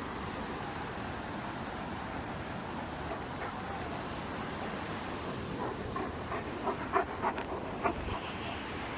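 Dog giving a quick run of about six short, high-pitched yelps over about two seconds, starting a little past the middle, over a steady background noise.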